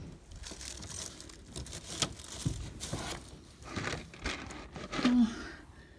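Irregular rustling and crinkling with scattered sharp knocks, as things are handled and shifted about in a search.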